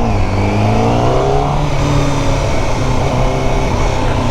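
Honda CBR1000RR-R Fireblade SP's inline-four engine, fitted with an Akrapovič exhaust, running under way. Its pitch rises over the first second and a half as it picks up revs, then holds steady.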